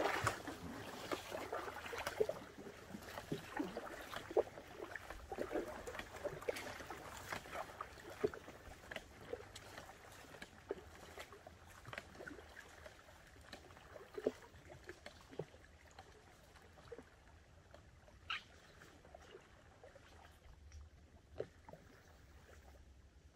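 Tucktec foldable kayak paddle dipping and splashing in lake water, stroke after stroke, growing fainter as the kayak pulls away.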